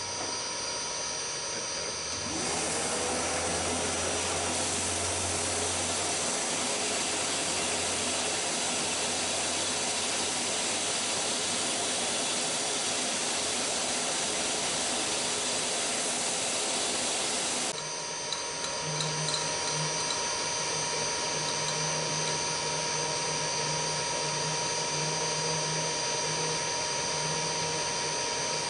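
Milling machine spindle motor spinning up with a rising whine about two seconds in, then running steadily as a 4 mm jobber drill bores through a cast iron backing plate. About 18 seconds in the sound drops to a quieter, steadier machine hum with a faint pulsing low tone.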